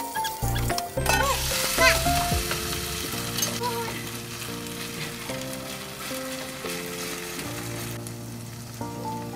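Vegan chijimi, a batter of bean sprouts, carrot and garlic chives, sizzling as it fries in a frying pan. The sizzle is loudest in the first few seconds, when there are scrapes and taps of a spatula pressing it down, and then settles to a softer steady fry. Soft background music with steady notes plays throughout.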